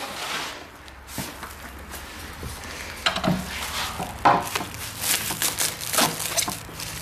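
Clear plastic wrap crinkling and rustling as hands pull it off a wrapped metal pipe, with a sharp knock about four seconds in.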